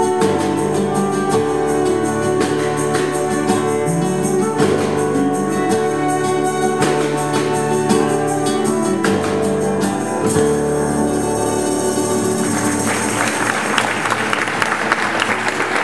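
A live band plays instrumental music on trumpet, keyboard, guitars and drums, with long held notes. About thirteen seconds in the tune ends and the audience applauds.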